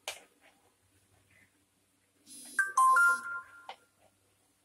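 A short chime of a few ringing notes, from a higher note down to lower held ones, lasting about a second and a half, starting around two seconds in and cutting off. A knock sounds right at the start.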